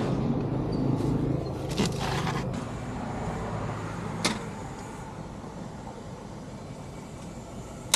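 Steady low vehicle engine hum that slowly fades, with a few clicks about two seconds in and a single sharp click about four seconds in.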